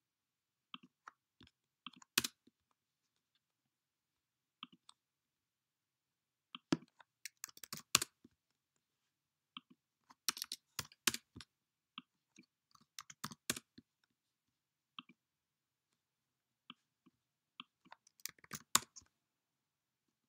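Computer keyboard key presses and mouse clicks, sharp and irregular, coming singly and in short clusters with quiet gaps between, as numbers are typed into software settings fields.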